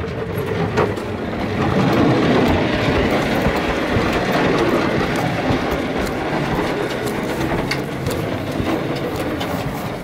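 Toy dump truck's wheels rolling fast over a concrete walkway as a child pushes it: a steady rolling rumble with scattered clicks and rattles.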